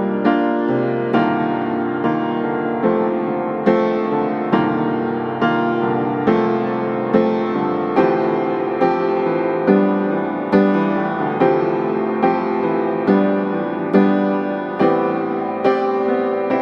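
Background piano music, slow and gentle, with notes struck at an even pace a little over once a second.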